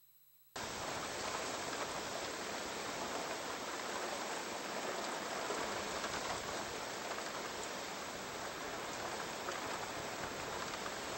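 Steady rushing, hissing noise of water streaming past a submerged drop camera, cutting in abruptly about half a second in.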